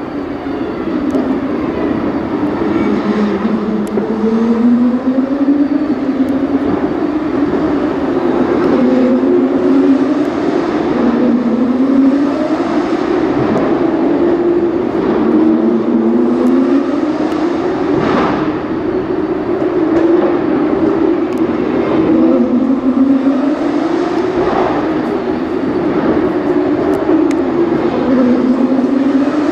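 Racing car engines on a street circuit, a continuous drone that climbs in pitch and drops again every few seconds as the cars accelerate and shift, with a few brief louder passes.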